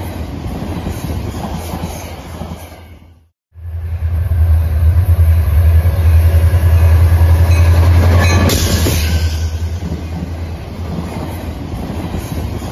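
Florida East Coast Railway Christmas train passing close by: a loud, steady, low diesel-locomotive rumble that builds as the train comes near and is loudest about two-thirds of the way through as the locomotives pass. It then eases off as the lit cars roll by. The sound drops out briefly a few seconds in, at a cut between shots.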